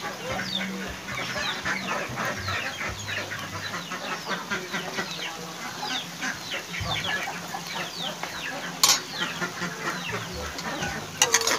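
Chicks cheeping without a break: many short, high chirps, each falling in pitch. A metal spatula clacks against the wok about nine seconds in and again near the end.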